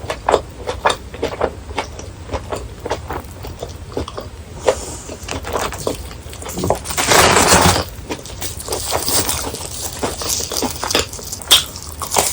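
Close-miked eating of crunchy fried food: a quick run of crisp crunches and chewing, with one louder, denser crunch about seven seconds in.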